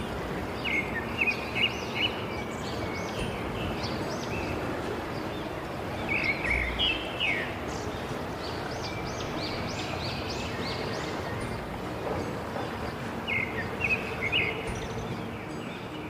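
Steady rush of falling water with small birds chirping over it in three bursts: near the start, about six seconds in, and about thirteen seconds in.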